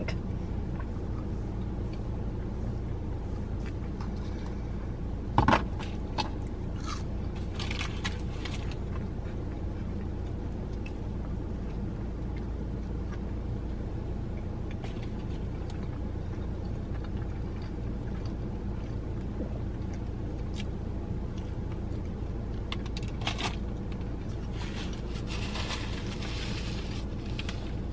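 A steady low hum, like a car's idling engine heard from inside the cabin, with a few short clicks and rustles of food and drink being handled and a brief hiss near the end.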